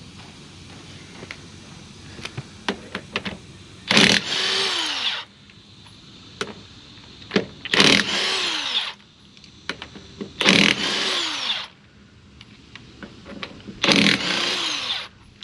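DeWalt 20-volt cordless 1/2-inch drive impact wrench hammering lug nuts off a truck wheel, in four bursts of about a second each, the motor's pitch falling away after each one. Light clicks come between the bursts.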